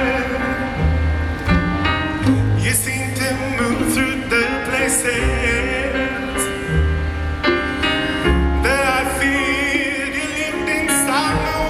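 Live orchestral ballad: a solo singer's voice with strong vibrato over sustained orchestral accompaniment and low bass notes.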